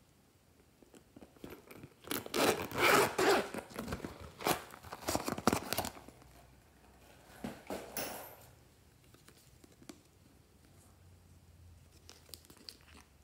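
Zipper on a vinyl pouch being pulled open: a loud rasping run lasting about four seconds, then a shorter rasp about seven seconds in.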